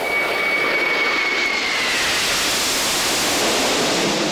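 Jet noise from a formation of four Mitsubishi T-2 trainers, each with two Adour turbofans, passing overhead: a loud, steady rush with a high engine whine that drops in pitch about two seconds in as the jets go by.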